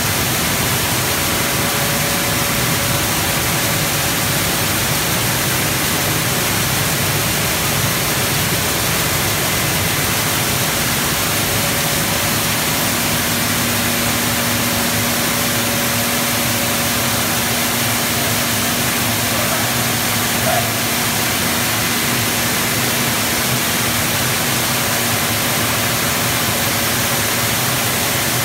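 Coffee dry-mill machinery running steadily while milling parchment coffee: a loud, even rushing noise with faint steady hums beneath it.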